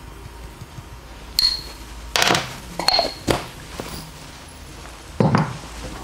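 Clinks and knocks of small glass jars and a spoon handled on a counter: two light clinks that ring briefly, about a second and a half apart, among louder knocks and scrapes, the last one near the end.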